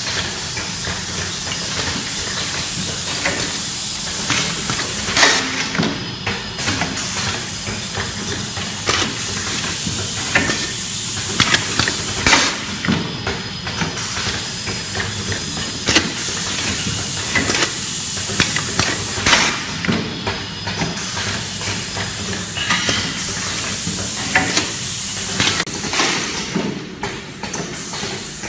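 Pneumatic automatic bag-filling machine running: a steady, loud air hiss with frequent clicks and clacks of its actuators as the rotary table works. The hiss cuts out briefly about every seven seconds, then resumes.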